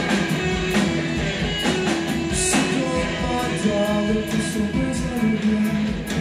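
Live rock band playing an instrumental passage: sustained electric guitar lines over steady drum and cymbal hits.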